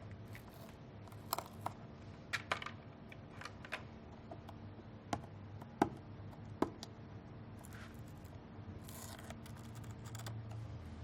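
Faint, scattered light clicks and scratches of small plastic parts and connectors being handled while tape is peeled from the ventilator's cable connectors, over a low steady hum.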